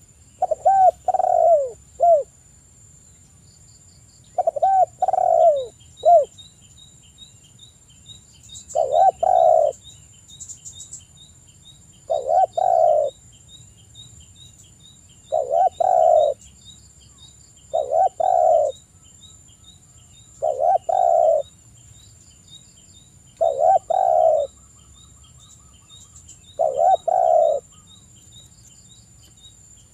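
Spotted dove cooing: nine loud phrases, about one every three seconds, singing actively. Faint, rapid high ticking chirps run in the background.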